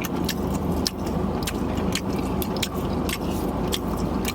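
A steady low hum, like a car engine idling, with many scattered sharp clicks and taps.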